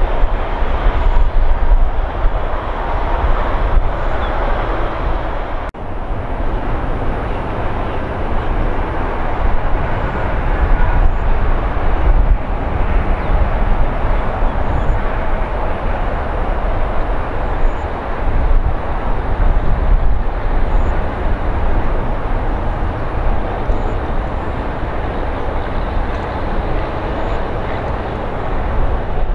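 Airliner jet engine noise: a loud, steady rush with a deep rumble, with a brief dip about six seconds in.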